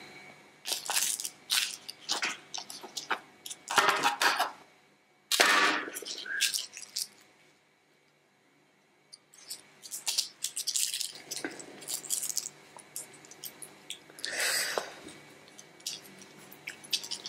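Crisp, flaky baked börek crust crackling as a knife cuts through it and hands break it apart, in bursts of sharp crackles with a quiet spell of about two seconds midway.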